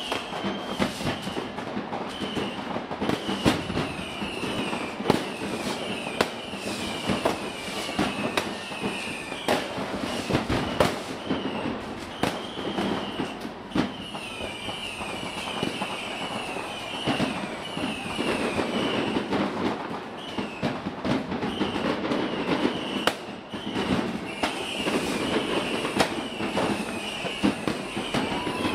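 Fireworks going off over a city: frequent overlapping bangs and crackling. A steady run of short, high-pitched whistles, each falling in pitch, continues through the whole stretch.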